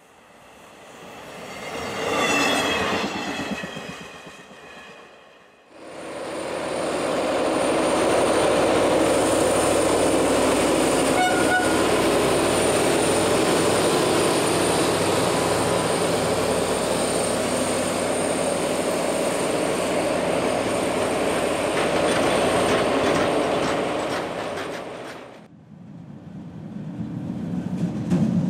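A railcar's horn sounds as it approaches, its tone falling slightly. A pair of diesel locomotives then passes close by for about twenty seconds: steady engine and wheel noise with a thin high whine and clicking over rail joints. Near the end an electric locomotive's rumble begins to build.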